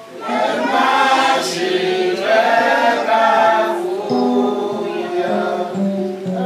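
A woman's voice singing a worship song into a microphone, with other voices joining in; the notes grow longer and more drawn out in the second half.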